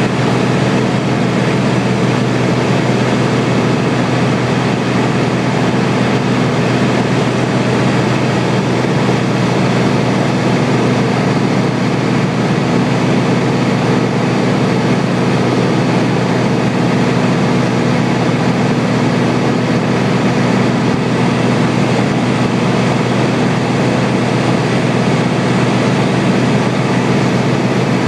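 Light airplane's piston engine and propeller droning steadily in cruise, heard from inside the cabin with a constant rush of air noise. Pitch and level hold without change.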